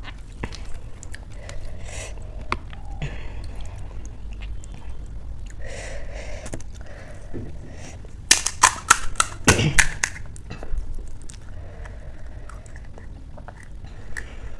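Crisp panipuri shells being cracked open with the fingers: a quick cluster of sharp cracks a little past the middle, among softer clicks and rustles of food being handled.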